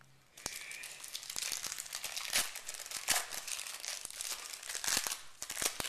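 Wrapper of a 1991 Pro Set Series 1 football card pack crinkling as it is torn open by hand, with several sharper crackles.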